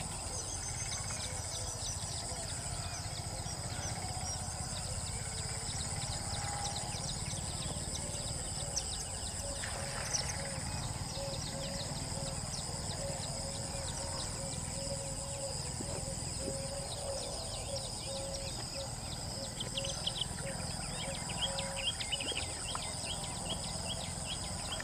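Outdoor ambience of insects shrilling steadily. A low note repeats through the middle, and a run of quick high chirps comes near the end.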